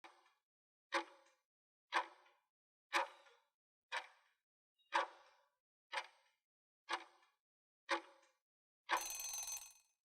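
Countdown timer sound effect: a sharp tick once a second, nine times, then a short ring about nine seconds in as the time runs out.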